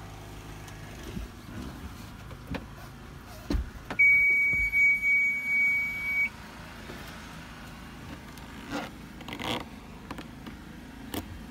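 A steady, high electronic beep, about two seconds long, sounds about four seconds in: the boat helm's warning buzzer. Around it are a few short clicks and knocks, and a low engine idle hum in the first part.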